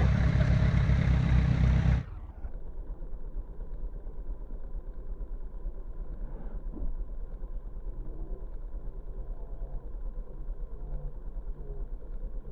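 Lifted Jeep Cherokee on 35-inch tyres, its engine running loud at high revs for about two seconds, then dropping suddenly to a low, steady idle.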